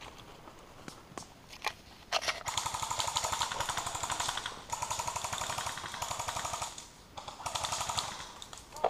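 Airsoft electric gun firing on full auto in three long bursts, a rapid buzzing rattle of the gearbox cycling. The bursts start about two seconds in, with short gaps between them.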